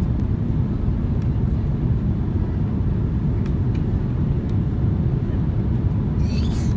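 Steady low drone of an aircraft in flight, engine and airflow noise heard inside the cabin.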